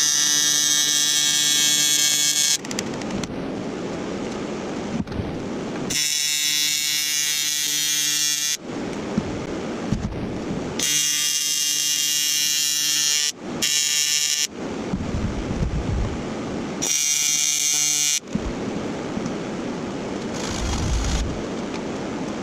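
Welder laying short welds: a steady buzzing arc in five bursts of about one to two and a half seconds, each starting and stopping abruptly.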